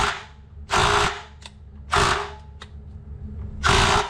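DeWalt DC820 18-volt 1/2-inch cordless impact wrench hammering in four short bursts of about half a second each. It is working on the hex head of a seized water heater anode rod, which does not yet break loose.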